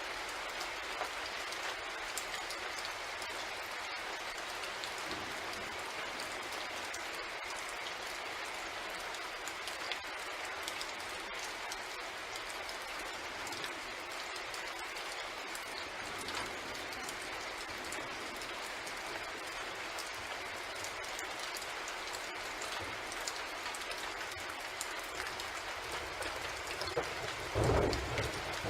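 Steady rain falling, an even hiss with scattered fine drop ticks. A short low rumble rises near the end.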